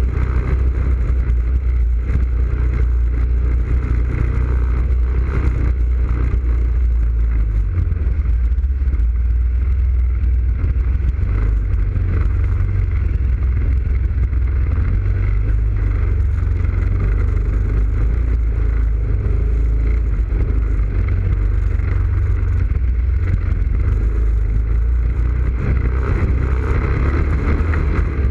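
ATV engine running steadily under way along a muddy trail, with a low drone whose note changes about eight seconds in.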